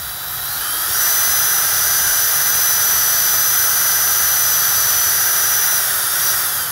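Cordless battery drill running with a cardboard toilet-roll tube on its chuck, winding old fishing line off a reel spool. Its motor whine rises in pitch about a second in, holds steady at full speed, then winds down near the end.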